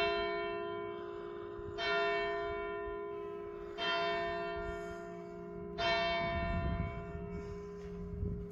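A large church bell tolling, struck four times about two seconds apart. Each stroke rings out with the same set of tones, and its low hum note lingers steadily between the strokes.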